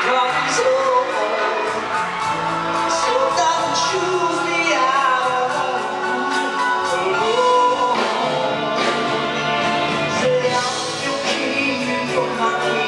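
A live musical-theatre song: a male lead singing a slow show tune over a band.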